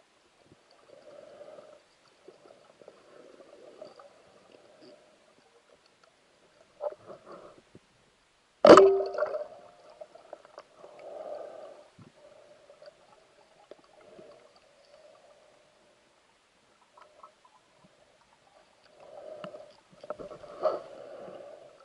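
Speargun fired underwater: one sharp crack with a short metallic ring about nine seconds in. Around it, muffled swishing and gurgling of water come and go.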